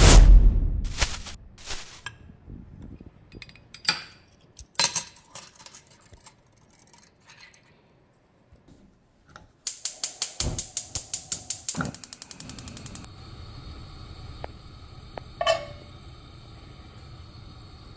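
Kitchen cooking sounds: cabinet doors swung open with a thump, then a few sharp metal clinks of measuring cups and spoons. About ten seconds in, a gas stove burner's igniter clicks rapidly, about four times a second for some three seconds. The clicking stops and a steady hiss takes over, with one more metal clink near the end.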